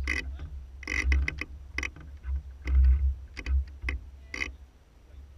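Irregular clicks and knocks from the fittings of a wooden sailing yacht under way, over a low, gusting wind rumble on the microphone. The clicks come in ones and twos, then die away near the end.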